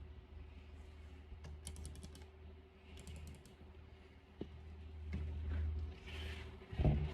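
Quick runs of light clicks and taps, like handling or pressing small buttons, over a steady low hum, with a short thump near the end.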